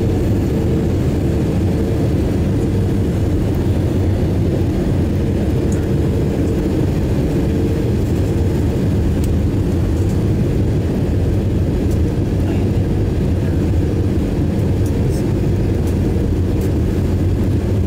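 Steady cabin noise of a jet airliner on approach, heard from a window seat beside the engine: an even low rumble of jet engine and airflow, with a faint steady hum that fades in and out.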